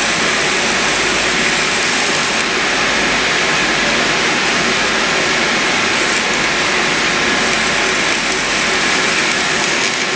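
Electric arc welding on a water heater's thin metal: a steady, loud crackling sizzle.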